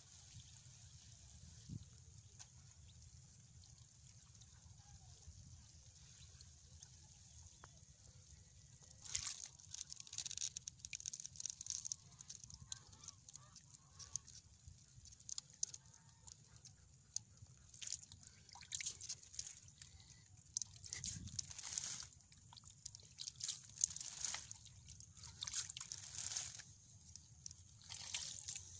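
Hand working in a small water-filled mud hole, with irregular splashing, sloshing and squelching of muddy water. Nearly quiet for the first several seconds, then the splashes start and keep coming in uneven bursts.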